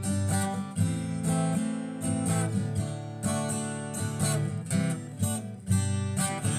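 Intro music: acoustic guitar strummed and plucked in a steady rhythm.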